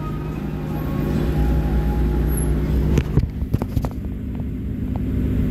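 Car running with a steady low engine and road rumble heard from inside the cabin, with a few sharp knocks and clicks about three seconds in.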